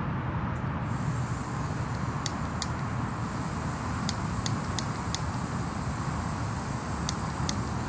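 Gas hissing from a canister-top backpacking stove's opened valve, with about eight sharp clicks of its piezo igniter in small groups as it is pressed without lighting the stove; the striker doesn't work. A steady low rumble of motorway traffic runs underneath.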